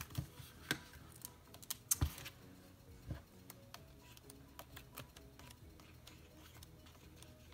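Light clicks and taps from handling a sticker book and paper planner pages, most of them in the first three seconds, over quiet background music.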